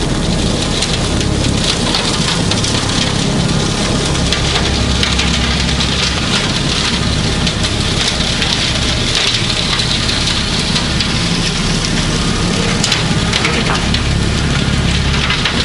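Kubota B2650 tractor's diesel engine running steadily, with a loud rushing hiss over its low rumble.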